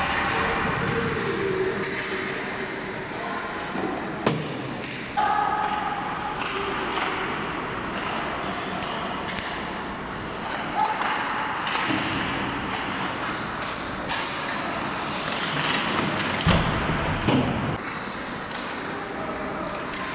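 Ice hockey play in a rink: skates on the ice, sharp clacks of stick and puck, and shouts from players and onlookers, with a heavy thud against the boards a little after three-quarters of the way through.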